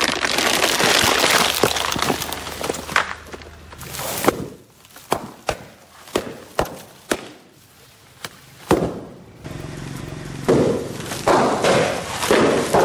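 Car tyre rolling onto and crushing a boxed toy set, a dense crackling and crunching of cardboard and plastic. Then a series of sharp single snaps and pops as the tyre presses down on foil balloons, with foil crinkling near the end.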